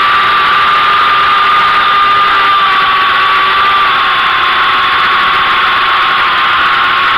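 Syma X8W quadcopter's motors and propellers buzzing steadily, picked up close by a camera mounted on the drone: a loud, steady whine over a rushing hiss that drops slightly in pitch about four seconds in as the throttle eases.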